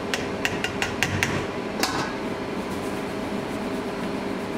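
Stainless steel colander knocked against the rim of a steel hotel pan as the meat is shaken out: about six quick metallic taps, then one louder clank with a short ring, over a steady background hum.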